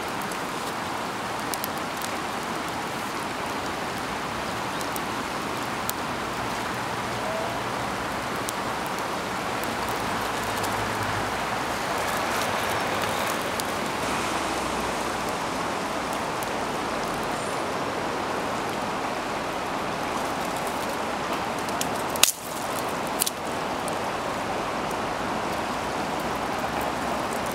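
Steady rushing of river water, with faint scattered crackles from a small twig fire. One sharp click comes about 22 seconds in.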